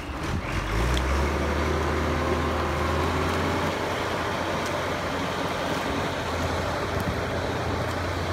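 Small outboard motor on a trimaran's stern starting up in the first second and then running steadily with a low hum.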